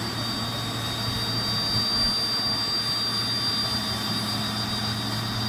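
Pratt & Whitney PT6A turboprop engine being spun up by its starter on ground power, a 20-second wind-up: a steady high whine over a low hum, holding even throughout.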